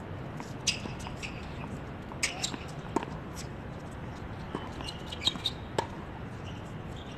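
A tennis ball bouncing and tapping on a hard court: a scattering of sharp, short taps at uneven intervals, with faint voices in the background.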